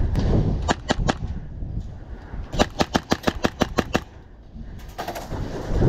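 Airsoft rifle shots: three or four single shots, then a quick string of about ten shots at roughly eight a second. Near the end a louder rough noise comes in.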